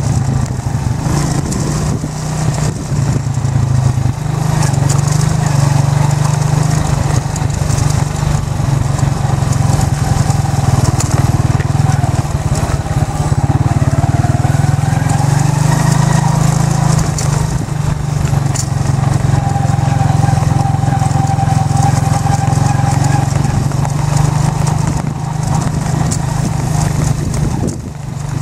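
Motorcycle engine running steadily under way, riding along a dirt farm track.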